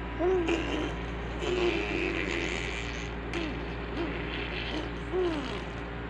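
Six-and-a-half-month-old baby vocalizing close to the microphone: a string of short coos and grunts, each rising and falling in pitch, about half a dozen.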